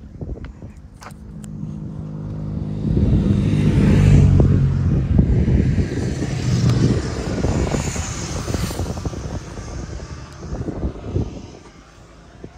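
A vehicle's engine on the road, growing louder as it approaches and passes, then slowly fading away.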